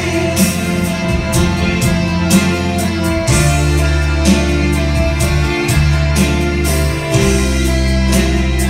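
Music for a stage dance number: strummed guitar over sustained bass notes, with a steady beat.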